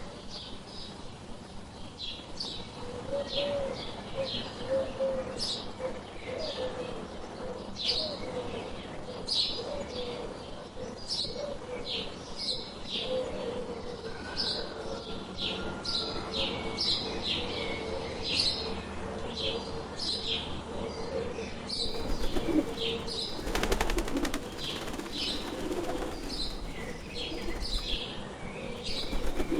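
Birds chirping: short, high, falling chirps come several times a second, over a low wavering cooing. From about three-quarters of the way in, bursts of wing flapping come in.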